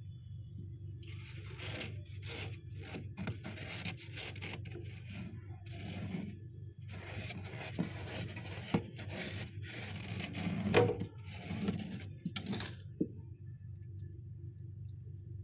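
Fingers scraping and raking thick, powdery frost build-up inside a freezer: a long run of irregular crunchy scratching strokes, the loudest about two-thirds of the way through. The strokes stop a couple of seconds before the end.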